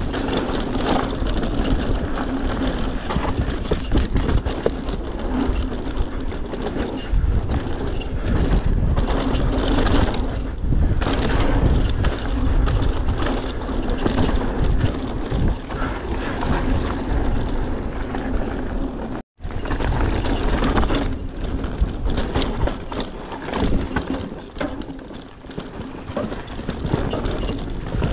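Enduro mountain bike (Mondraker Superfoxy) descending a dry, technical trail, heard from a GoPro on the bike or rider: tyres rolling and skidding over dirt and roots, frequent knocks and rattles from the bike, and wind on the microphone. The sound cuts out for a split second about two-thirds of the way through.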